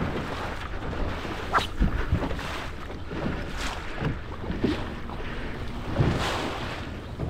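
A boat under way on open sea: a steady rumble and rush of water, with irregular thumps from the hull meeting waves, and wind buffeting the microphone.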